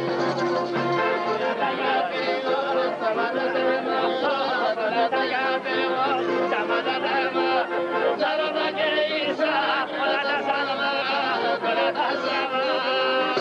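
Live Greek folk band: a man sings a folk song while beating a large hand-held frame drum in a steady rhythm, with a violin and an accordion playing the melody along with him.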